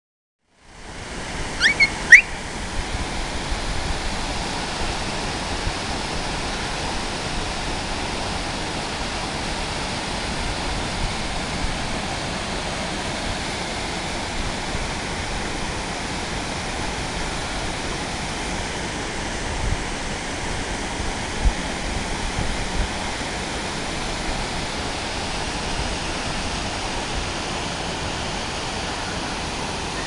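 Waterfall pouring into a pool: a steady rushing hiss of falling water. About two seconds in come two brief, sharp rising chirps, and around twenty seconds a few low bumps.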